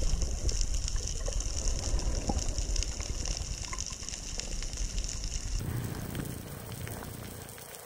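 Muffled underwater ambience picked up by a submerged action camera: a steady low rumble of water with a hiss above it and scattered faint clicks. The sound changes abruptly about five and a half seconds in, the hiss dropping away.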